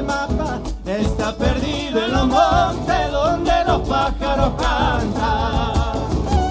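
Live Argentine northern folk band playing: a fiddle melody with vibrato over acoustic guitar, with steady beats on a bombo legüero and drum kit.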